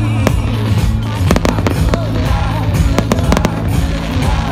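Aerial fireworks going off: sharp bangs and crackles, bunched into a quick cluster about a second and a half in and another about three seconds in, over music with a steady low bass.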